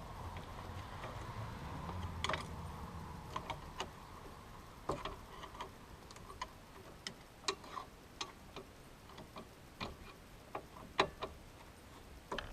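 Scattered sharp clicks and light taps, unevenly spaced, about fifteen in all, with a faint low hum under the first couple of seconds.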